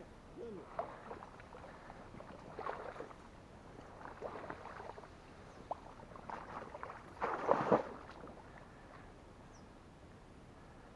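Intermittent rustling and light splashing of movement through marsh reeds and shallow water, in short scattered bouts, the loudest about seven to eight seconds in.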